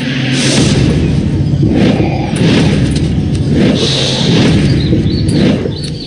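Dramatic documentary soundtrack: a run of about five deep booming whooshes, each swelling and fading, over low music.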